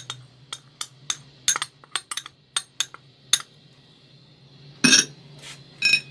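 A spoon clinking against cookware and spice containers: a run of about a dozen sharp taps over the first three seconds or so, then two louder clatters near the end.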